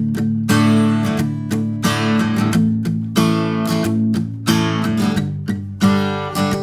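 Enya EF-200 solid-top OM-body acoustic guitar played unplugged, heard straight from the body: chords strummed in a steady rhythm, each ringing on between strokes.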